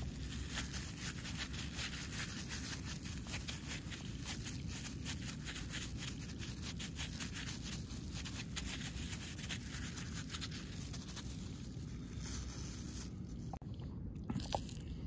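A hand in a clear plastic glove pressing and smoothing soft, wet mulida (crushed flatbread mixed with buttermilk) on a plate: a dense run of crinkling plastic and squishing, with a low rumble underneath.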